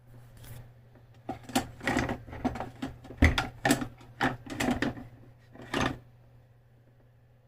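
An irregular run of about a dozen sharp clicks and knocks from kitchen work, starting about a second in and stopping after about five seconds.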